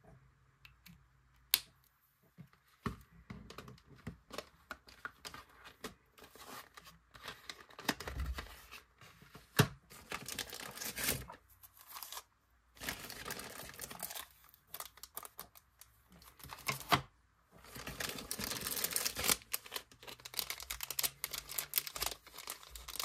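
Thin plastic packaging crinkling and rustling as it is handled and opened, in several bursts a second or two long, with scattered sharp clicks and taps of small plastic items.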